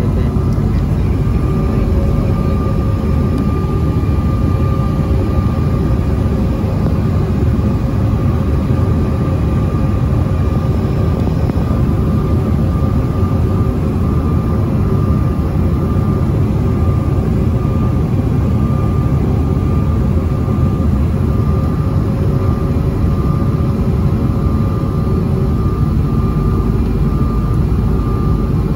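Steady cabin noise inside a Bombardier CRJ-900 airliner in flight. A loud, even rumble of airflow and the rear-mounted jet engines, with a thin steady whine on top.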